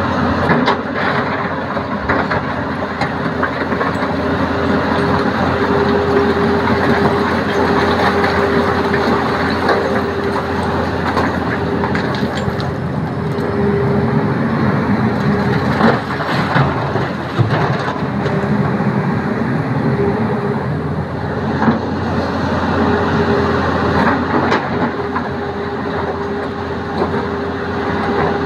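Tata Hitachi ZAXIS 220 excavator's diesel engine running under load with a steady hydraulic whine that comes and goes, while rock clatters and knocks against the steel bucket and the dump truck's bed several times.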